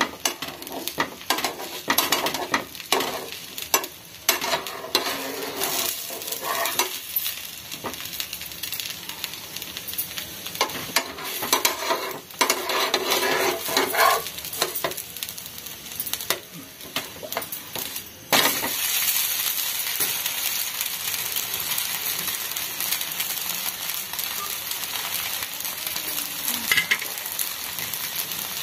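A rava-maida dosa frying on a hot nonstick pan, sizzling, while a steel spatula scrapes and clicks against the pan as it is worked under the dosa and flipped. About 18 seconds in the scraping stops and a steady sizzle remains.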